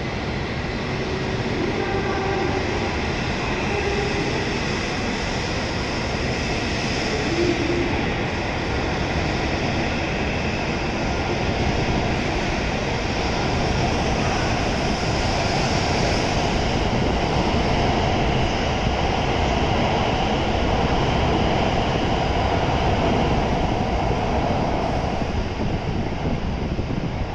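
E7 series Shinkansen train pulling out and accelerating away. A steady rush of running and motor noise grows louder as it gathers speed.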